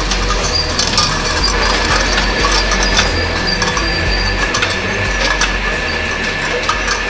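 Production-line machinery running with a steady low hum, over which tin cans give frequent, irregular light metallic clinks as they knock together.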